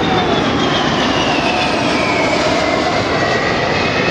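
Boeing KC-135 Stratotanker's four CFM56 turbofan engines during a flyby: a loud, steady rush of jet noise with a high whine that slowly falls in pitch as the tanker moves away.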